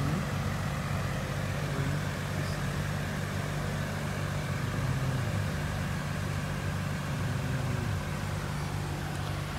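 Steady low machine hum at an even pitch, unchanging throughout, typical of shop refrigeration or air-handling equipment.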